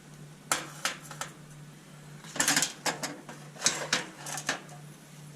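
Small metal parts and a hand tool clicking and clinking against the dryer's idler tensioner pulley shaft as the lock washer is worked off. The taps are scattered, with quick clusters near the middle, over a steady low hum.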